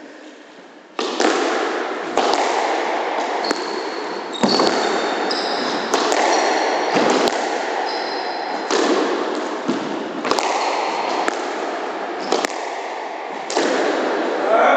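A squash rally starting about a second in: the ball struck by rackets and smacking off the court walls, again and again, echoing in the court, with short high squeaks of shoes on the wooden floor.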